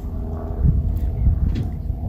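A low, uneven outdoor rumble with a faint steady hum underneath and a few light clicks.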